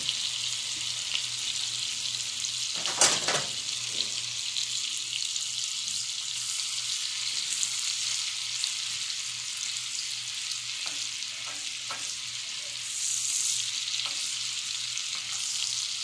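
Sliced onion sizzling in hot bacon fat in a small cast-iron skillet, a steady high hiss, stirred with a metal spatula. A sharp knock comes about three seconds in, and the sizzle swells briefly near the end.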